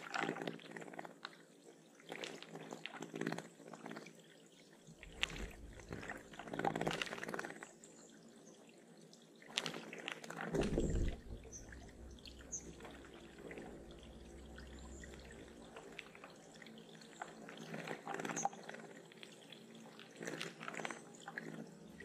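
Water splashing and dripping at a bird pond, in irregular short splashes, with a few short high bird chirps about halfway through.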